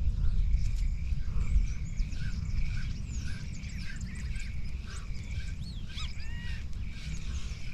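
Wild birds chirping and calling with many short, high whistled notes, over a steady low rumble.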